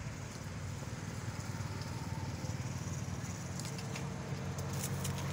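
A motor vehicle engine running steadily, its low hum growing a little louder partway through, with a few faint clicks near the end.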